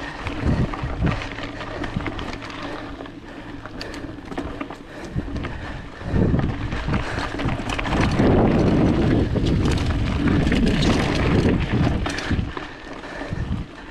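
Wind rushing over an action camera's microphone during a mountain bike ride, swelling louder for several seconds in the middle, with scattered clicks and rattles from the bike on the trail.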